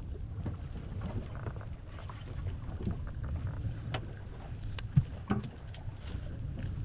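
Low rumble of wind on the microphone and water around a small fishing boat, with scattered light knocks and clicks and one sharper knock about five seconds in.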